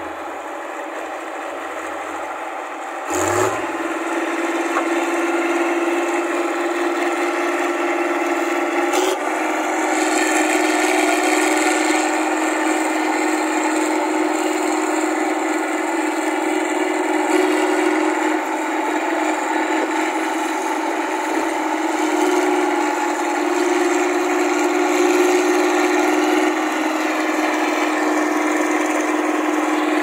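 New Holland 8060 combine harvester running close by as it harvests rice: a steady mechanical clatter and hum from its engine and working parts, with a sharp click and a change in the hum about three seconds in and again about nine seconds in.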